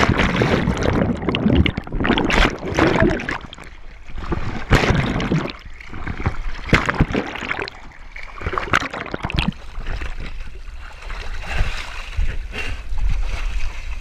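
Water sloshing and splashing right at an action camera's microphone as a swimmer moves through the sea toward the rocks, in irregular surges.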